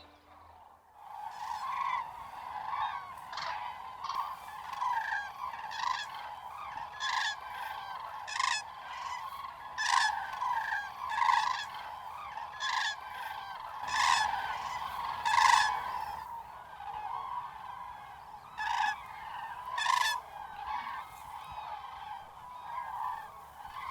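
A flock of common cranes calling from their roost: a steady chorus of overlapping trumpeting calls, with louder single calls from nearer birds every second or two.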